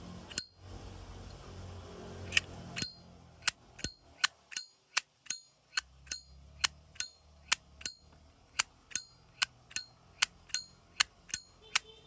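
Brass Zippo windproof lighter, a 1937 replica, having its lid flicked open and snapped shut over and over to show off its sound. It gives sharp, ringing metallic clicks, about three a second.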